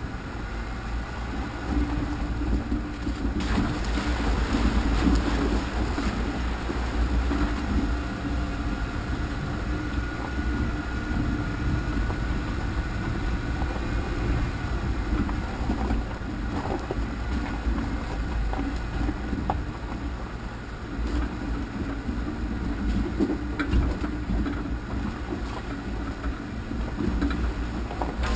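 Off-road vehicle engine running steadily at low speed with a low rumble, jostled along a rough dirt trail.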